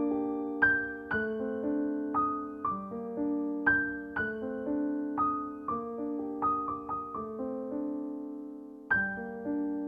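Background piano music: slow, gentle notes and chords, each struck and left to ring and fade. Near the end a held chord dies away for about a second before the next notes come in.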